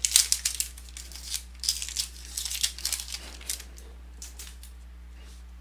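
Trading cards and their foil pack wrapper being handled, crinkling in a run of quick crackles that stops about three and a half seconds in.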